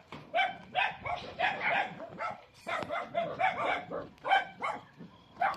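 Caged dogs barking repeatedly in short, quick barks, with a brief lull about two and a half seconds in.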